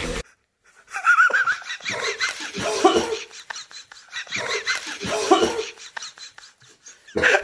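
Hearty laughter in two long fits a few seconds apart, with a wavering, bubbling pitch.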